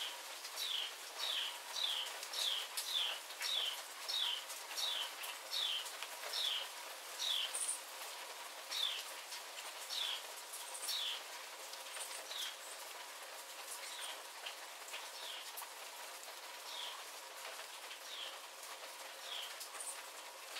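Steady rain falling, with scattered sharp drips close by. Over it a bird repeats a short down-slurred whistled note, about two a second at first, then slower and fainter over the second half.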